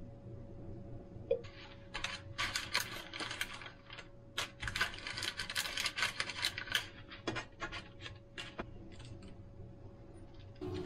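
Parchment baking paper crinkling and rustling, with light clicks, as hands handle wooden skewers of meat and vegetables on a lined oven tray. It comes in bursts over a faint steady hum.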